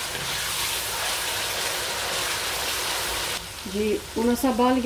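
Onions frying and sizzling in oil and a little water in an aluminium pot, stirred with a wooden spoon. The sizzle cuts off suddenly about three and a half seconds in, and a person starts speaking.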